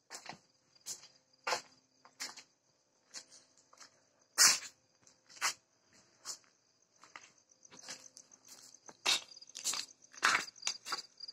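Crickets chirping steadily in a continuous high pulsing trill, with irregular knocks and scuffs over it, the loudest about four and a half seconds in.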